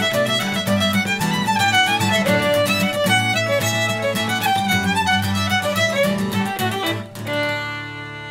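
Background music: a Shetland fiddle tune playing quick runs of notes over a steady low accompaniment. About seven seconds in, the run stops and a few held notes ring on.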